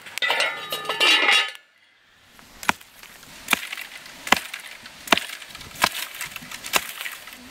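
Six sharp wooden chopping strikes, about one every 0.8 seconds, as thin sapling stems are hacked through. Before them comes a short loud burst of crackling from the wood fire under a cauldron.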